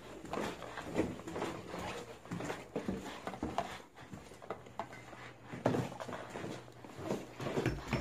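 Footsteps going down carpeted stairs, with irregular soft knocks and rustling from carried bags; the loudest knock comes a little before six seconds in.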